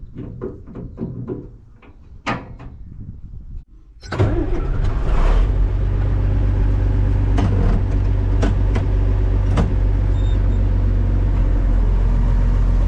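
A few knocks and clicks, then about four seconds in an engine starts and runs steadily with a low, even hum.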